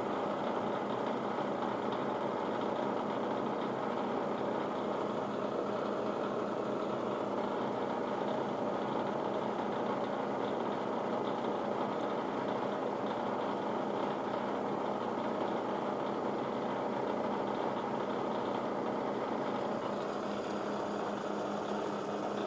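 Electric motor of a shop machine running steadily, a constant even whir with no breaks or changes.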